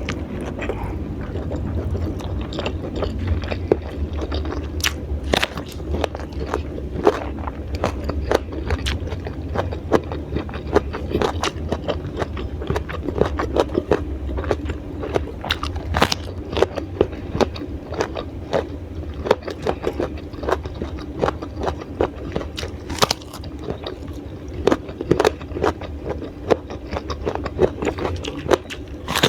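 Close-miked eating of raw vegetables: crisp bites and crunchy chewing, a steady run of irregular sharp crunches, over a steady low hum.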